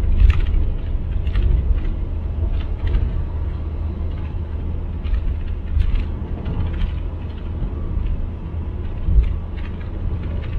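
Road noise from a car driving at highway speed: a steady deep rumble with scattered small clicks and knocks.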